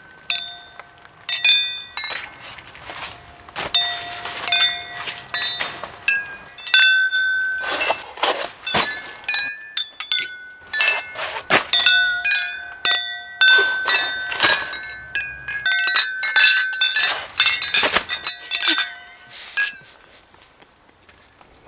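Crystal stemmed glasses clinking together again and again in a toast, each clink ringing on with a clear tone. The clinks come in quick clusters and stop about two seconds before the end.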